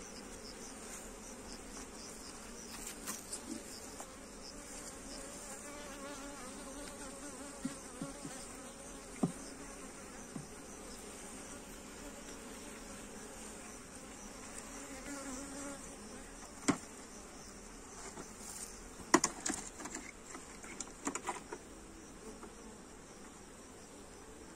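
Honeybees buzzing steadily from an open hive. A few sharp knocks of wooden hive parts being handled, with a cluster of them about three-quarters of the way through.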